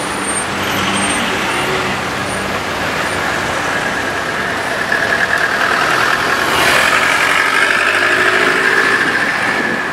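Dense rush-hour road traffic: many car, bus and truck engines running and idling in queued traffic. A steady high whine rises over the traffic noise in the second half.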